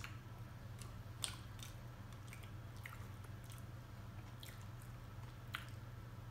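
Close-miked chewing of buttery seafood boil: soft wet squishing with scattered small clicks and smacks, two sharper clicks about a second in and near the end. A steady low hum runs underneath.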